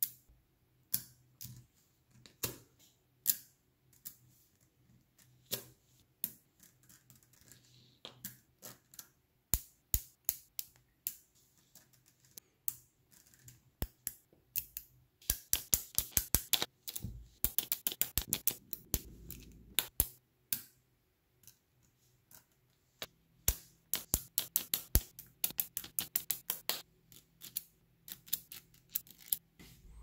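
Small magnetic balls clicking and snapping together as they are placed and lined up into rows, in scattered single clicks and quick runs of clicking, densest about halfway through and again near the end.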